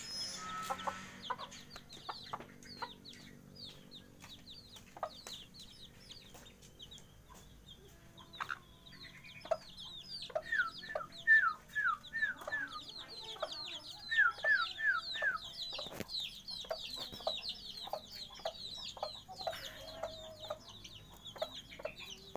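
A flock of 18-day-old free-range village chicks cheeping continuously with short, high, falling peeps. Near the middle come two quick runs of four or five louder calls.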